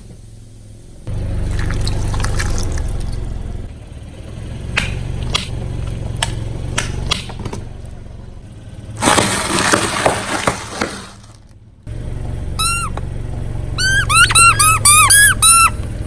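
A car idling and creeping as its tyre crushes objects: scattered crackles and crunches, a loud rushing burst past the middle, then a fast run of high, bending squeaks near the end as something rubbery is pressed under the tyre.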